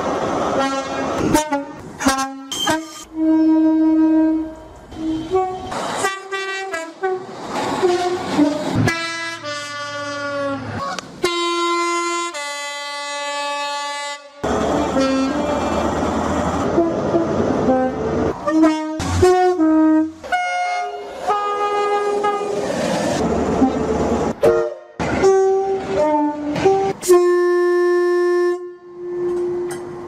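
A run of short clips of British main-line train two-tone horns, mostly HST power cars, each horn sounding high and low notes in turn. The clips are cut abruptly one into the next, and in places the noise of a train running by lies under the horns.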